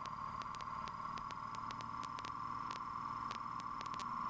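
Piston engine of a light aircraft running at cruise power (24 inches manifold pressure, 2400 RPM), heard as a steady muffled drone with hiss through the headset intercom recording. Faint irregular ticks sound over it.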